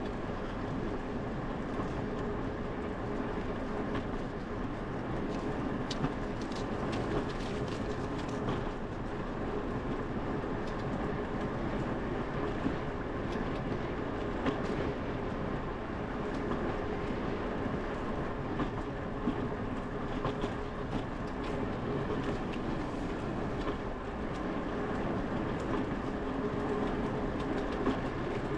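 Bicycle rolling steadily along a concrete path: a constant tyre and drivetrain rumble with a faint steady hum and frequent small clicks and rattles.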